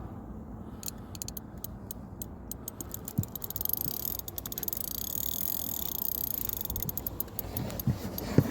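Carp reel's ratchet clicking as line is pulled off it, a run of ticks that speeds up into a continuous rasp for a few seconds and then slows back to separate ticks, the sign of a carp taking line.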